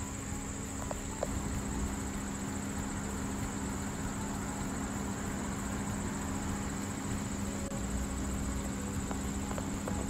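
Steady outdoor drone of insects, a constant high-pitched buzzing, over a low steady hum, with a couple of faint clicks about a second in.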